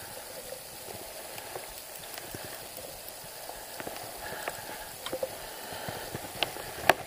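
Fishing reel being wound in against a small hooked fish: faint irregular ticks with light water sounds, and one sharp click near the end.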